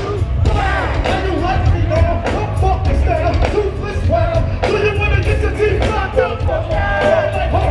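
Live hip-hop concert music through a large PA: a heavy bass beat with drum hits and a vocal line over it, with the crowd underneath.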